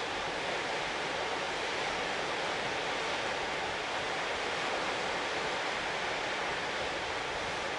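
Steady rushing of sea and wind, an even hiss with no change in level.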